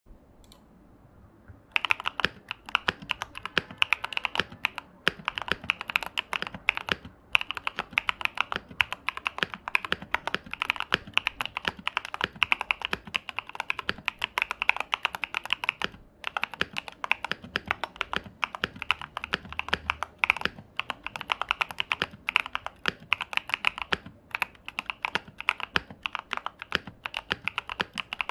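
Continuous typing on a KBDfans Tofu custom mechanical keyboard fitted with SA-profile keycaps: a dense run of key clacks that starts about two seconds in, broken by brief pauses now and then.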